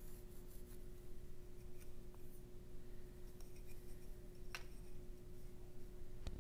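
Pencil drawing lines on a wooden dragster body: faint scratchy strokes in short runs, with a sharp click about four and a half seconds in and another near the end. A steady low hum underneath.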